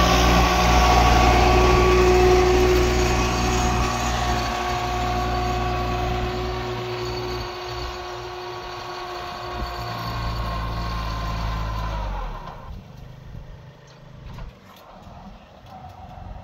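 Kubota 21 hp mini tractor's diesel engine running steadily as it pulls a seed drill, loud close by and fading as it moves off, then falling much quieter about twelve seconds in.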